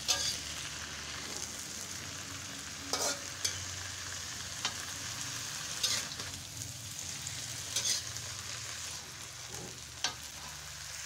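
Water spinach stir-frying in a wok with a steady sizzle. A metal spatula scrapes and knocks against the pan every second or two as the greens are tossed.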